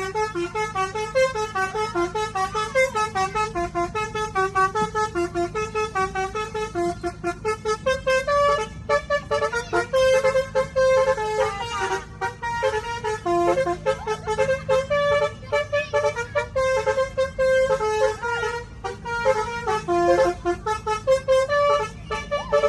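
Ken Arok bus's telolet horn, a multi-tone musical air horn, playing a fast melody of short stepping notes without a break. A steady low hum runs underneath.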